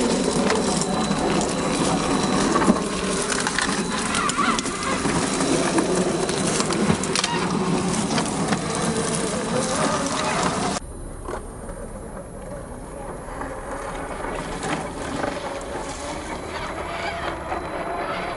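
Tamiya CC-01 RC crawler truck with a 55-turn brushed motor driving over dirt and dry brush: the motor and gear drive whirring with tyres and branches crunching. About eleven seconds in the sound cuts abruptly to a quieter, duller stretch.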